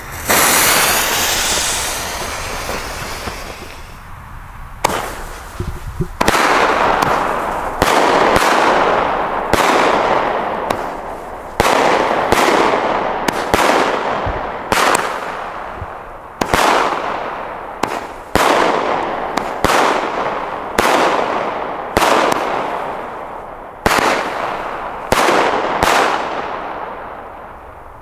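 Consumer firework cake, a 16-shot Pyrostar Nitraat, firing its shots one after another at uneven gaps of a second or two, each a sudden bang that fades out over a second or two.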